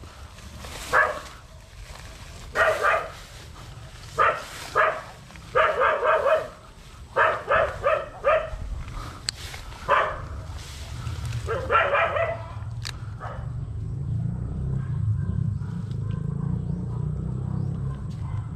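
A dog barking again and again, short barks about a second apart, some in quick runs, stopping after about twelve seconds. A low rumble builds up over the last few seconds.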